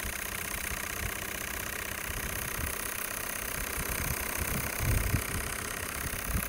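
Small Graham model steam engine running steadily in a model tugboat's open engine bay: a fast, even beat over a hiss of steam, with a few low thumps about two thirds of the way through.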